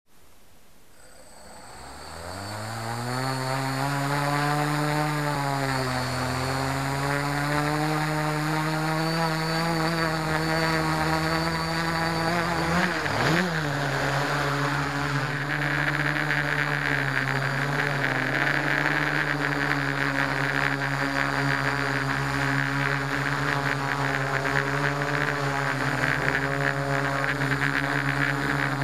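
Electric motors and propellers of a multirotor FPV drone, heard from on board: they spin up from rest about two seconds in, rising in pitch to a steady hum with a high whine. About halfway through the pitch dips and recovers quickly, and the hiss then grows as the drone lifts off and flies.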